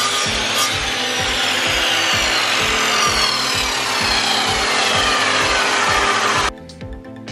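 Power tool working wood, a loud steady rushing noise with faint falling whines in it, which cuts off abruptly near the end. Background music with a steady beat runs underneath.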